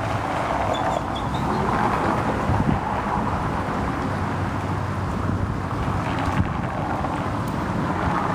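Wind rushing over the microphone outdoors, a steady rumbling hiss.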